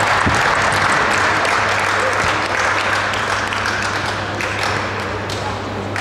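Spectators applauding and cheering after a point in a badminton doubles match, slowly dying down.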